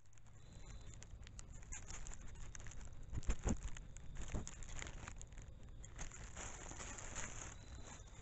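Leaves and twigs rustling and crackling close by as something moves through the brush, irregular throughout, with louder snaps a little over three seconds in and again at about four and a half seconds.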